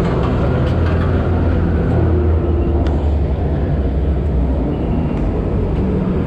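Chairlift machinery running with a steady low mechanical hum.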